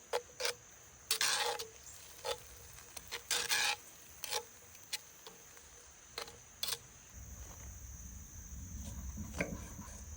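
Sharp clicks and two short scraping rushes from campfire cooking, over a steady high-pitched insect drone; a low rumble comes in about two-thirds of the way through.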